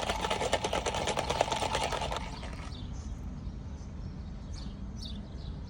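Ice rattling fast in a fountain-drink cup as the lemonade is stirred or shaken, for about two seconds; then it turns much quieter, with only faint light ticks.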